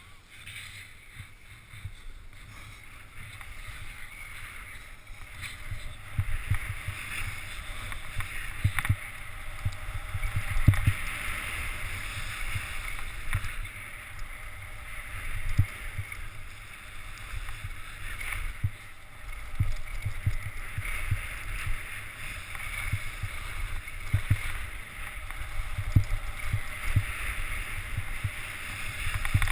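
Wind buffeting the microphone of a camera worn by a downhill skier, a gusty rumble that grows louder after the first few seconds as speed picks up, over a steady hiss of skis sliding and scraping on packed snow.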